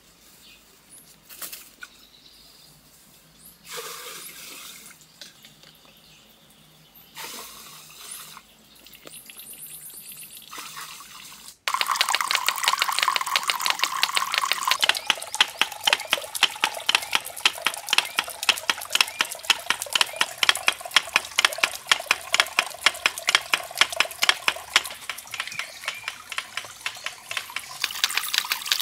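Water pouring from a bamboo pipe and splashing steadily into a small stone-lined pool. It starts suddenly about twelve seconds in; before it the sound is quiet, with only a few brief faint sounds.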